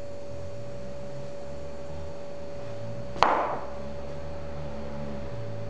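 A steady hum, broken a little over three seconds in by one sharp strike that rings briefly and fades.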